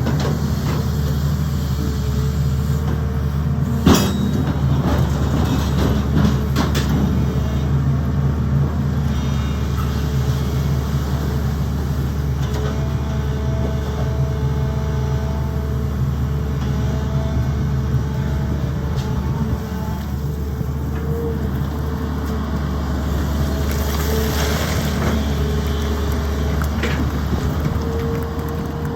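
Sany excavator's diesel engine running steadily under work, with a sharp knock about four seconds in and a few fainter clanks later.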